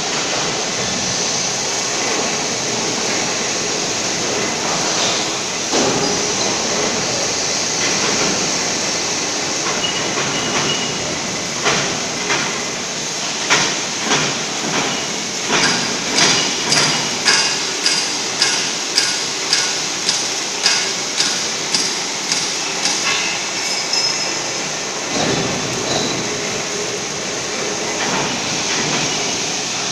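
Steady workshop din with a run of sharp metallic strikes, about two a second, each ringing briefly, that starts about twelve seconds in and stops some ten seconds later.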